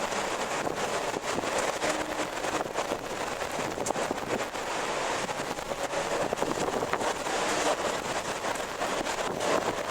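Strong wind blowing in gusts, with a few short, faint creaks now and then.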